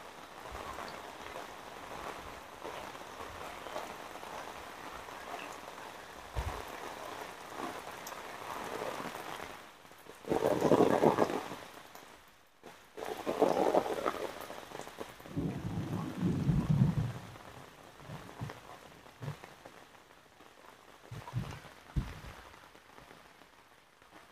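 Heavy tropical downpour, rain hissing steadily on the ground, palm leaves and river surface. About halfway through come three loud low bursts lasting a second or two each, then the rain goes on more quietly with a few short thumps.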